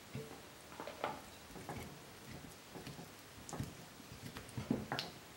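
A metal spoon stirring a thick cornstarch-and-water slime in a glass bowl: soft, irregular wet scrapes and squelches, with a sharper tap about five seconds in.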